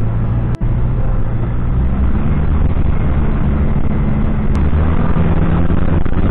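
Cessna 172's piston engine and propeller running steadily at low power on the ground, heard inside the cockpit. The sound drops out for an instant about half a second in.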